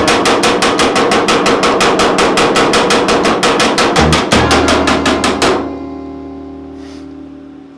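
Background music with a fast, even percussive beat and a bass line; about five and a half seconds in the beat stops and a held chord fades out.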